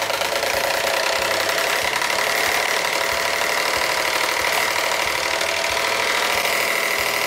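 Small electric desk fan running steadily: motor hum and blade whir with a steady high whine.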